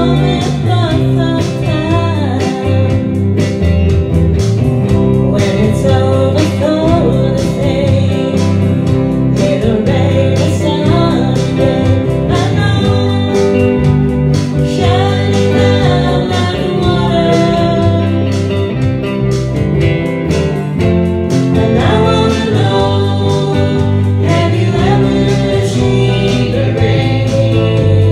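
A song: a singer over guitar backing with a steady beat.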